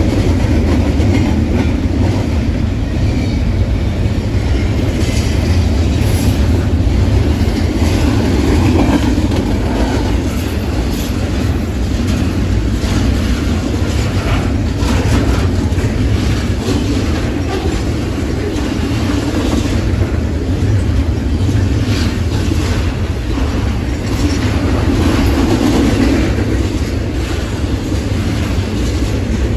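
Double-stack intermodal freight cars rolling past: a steady low rumble of steel wheels on rail, with irregular clacks as the wheels cross rail joints.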